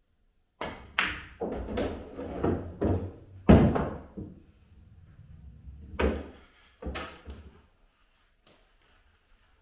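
A pool shot: the cue strikes the cue ball, then a run of knocks and rumbling as the object ball is pocketed and rolls away under the table. The loudest knock comes about three and a half seconds in, and two more knocks follow near six and seven seconds.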